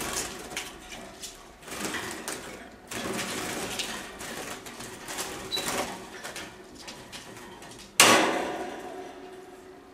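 Canaries fluttering and scrambling inside a small wire cage as a hand reaches in to catch one, with the wire and perches rattling in uneven bursts; a sudden louder burst comes about eight seconds in.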